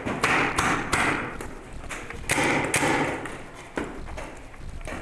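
Paintball markers firing and paintballs striking, heard as a string of sharp, irregular pops and thuds, several within a few seconds.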